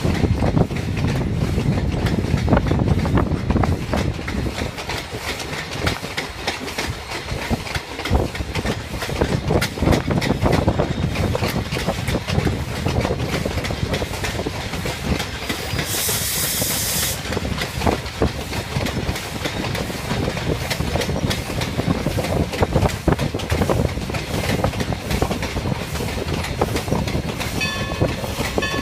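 A 2-6-0 Mogul steam locomotive and its passenger car rolling past close by, wheels clacking on the rails with steam hissing. A short burst of hiss comes about halfway through, and the locomotive's steam whistle starts to blow at the very end.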